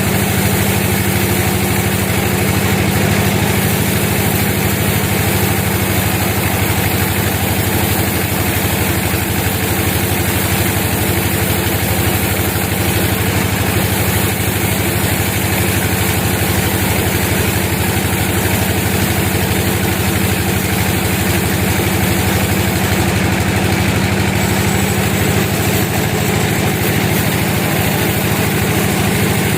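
Sawmill machinery running at a steady, unchanging drone.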